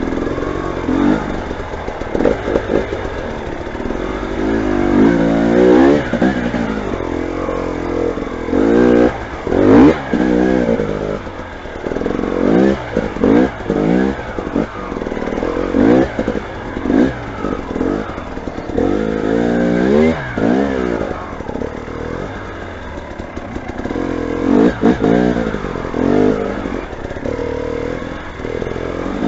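Motorcycle engine revving again and again, its pitch rising and falling with each burst of throttle and easing back between them.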